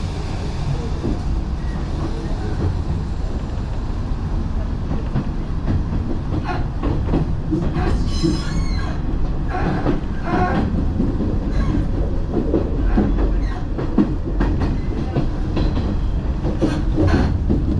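Nishitetsu commuter train running along the track, heard from inside the carriage: a steady low rumble of wheels on rail with short clicks over the rail joints, which come more often from about six seconds in.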